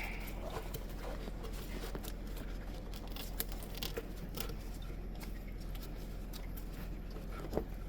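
Faint scattered clicks and taps of parts being unclipped and handled by hand in an engine bay, with one sharper click near the end, over a low steady hum.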